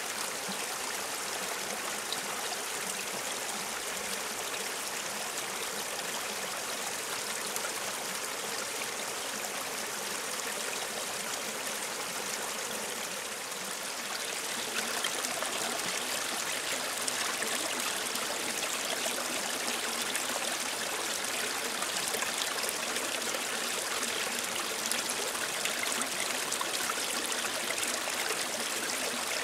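Shallow mountain stream running over rocks: a steady, even rush of flowing water. About halfway through it becomes a little louder and brighter.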